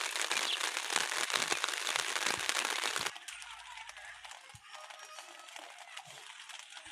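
Heavy rain pattering down with dense crackling from the drops hitting surfaces. It cuts off abruptly about three seconds in, leaving a much quieter stretch with a faint tune.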